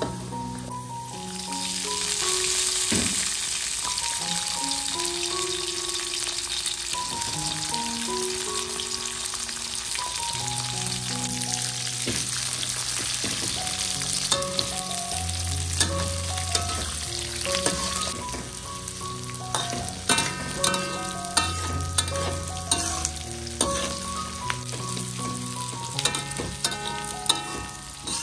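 Food sizzling in hot oil in a pan, stirred with a spatula. The sizzle swells about two seconds in, and in the second half sharp clicks and scrapes of the spatula against the pan come more often. Light background music with a plucked melody plays underneath.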